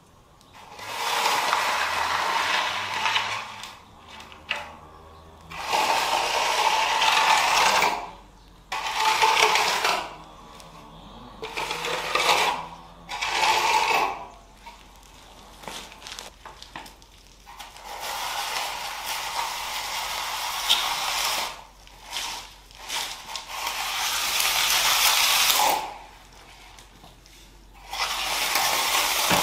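Hand trowel scraping across wet, freshly poured concrete floor while it is being smoothed, in about seven rasping strokes of one to three seconds each with short pauses between.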